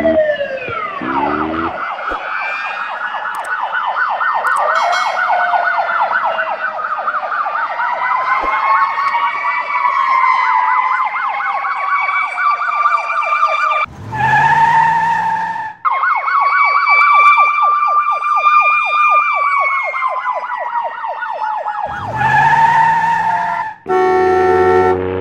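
Siren-like wail: a fast, regular warble with long rising and falling glides over it. It breaks off twice for a couple of seconds of a rougher, noisier sound, about a third and four-fifths of the way through.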